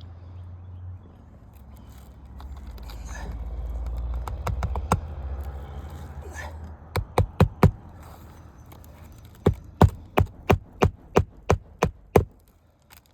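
Hammer driving roofing nails into asphalt shingles: a couple of strikes about four to five seconds in, a quick run of four around seven seconds, then eight more in steady succession, a little over two a second, near the end. A low rumble runs through the first several seconds.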